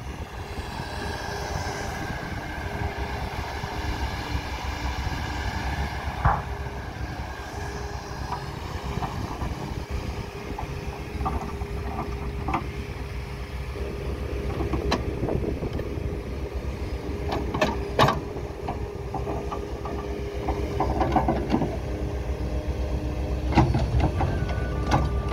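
Takeuchi TB290 amphibious excavator working: its diesel engine runs steadily with a steady hum as the bucket cuts and dumps peat sods. Scattered knocks and clanks come from the bucket and tracks, the loudest about six and eighteen seconds in.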